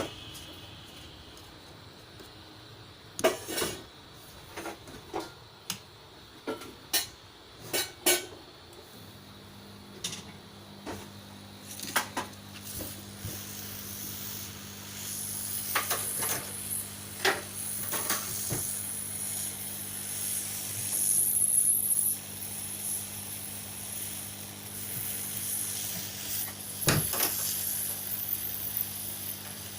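Small hard objects clicking and tapping, like tools and parts being handled during laptop repair work, in scattered knocks. A steady low hum sets in about nine seconds in.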